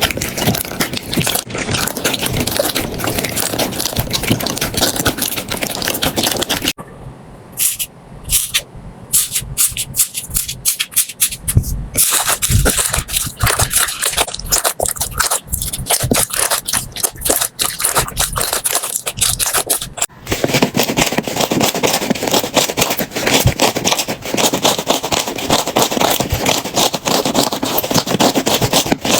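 Slime being handled, making a dense crackling of small clicks and pops. The sound changes abruptly three times, with sparser, quieter clicking for a few seconds after the first change.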